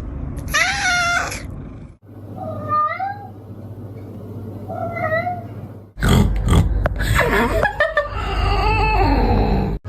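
Cats meowing in a run of short clips with hard cuts between them. A long, loud meow comes first. After a cut there are a few small, high meows. After a second cut there is a louder, busier stretch of meows mixed with knocks.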